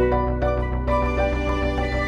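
Instrumental background music with held notes, a new chord coming in a little under a second in.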